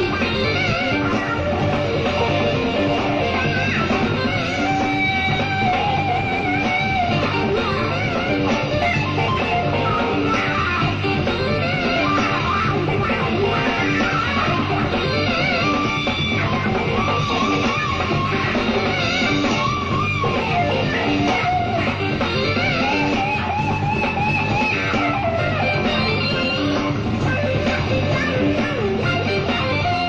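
Jazz-rock fusion band playing live: electric guitar over electric bass, drums and keyboards, in a steady dance groove.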